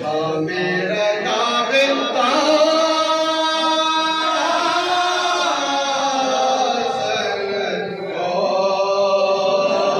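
A man's voice chanting a soz, a slow mournful Muharram lament, in long held, wavering notes, with a short break near the end before the next line.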